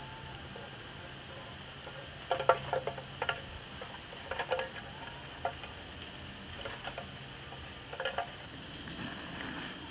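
Metal charcoal chimney of burning coconut charcoal being handled: short clusters of clinks and rattles, about five bursts a second or so apart.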